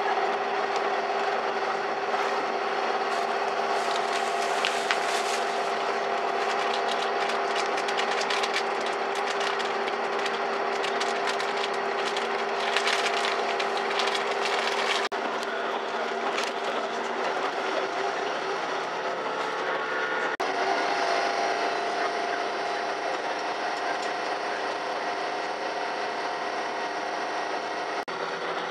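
Cabin noise of a Chizu Express HOT7000 series diesel limited express train under way: a steady engine and running drone with constant hums, and quick clicks and rattles through the first half. About twenty seconds in, the hum changes pitch.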